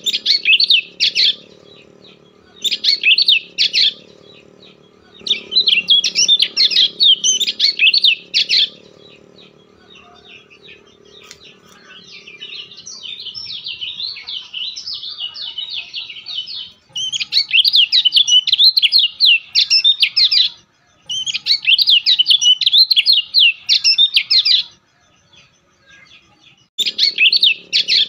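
A bird trilling in repeated bouts of fast, high notes, each bout lasting one to three seconds, with a quieter warbling stretch about midway through.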